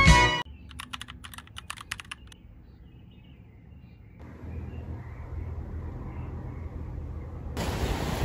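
A quick run of light, sharp clicks in the first two seconds, then faint outdoor ambience. Near the end it cuts to surf washing onto a sandy beach.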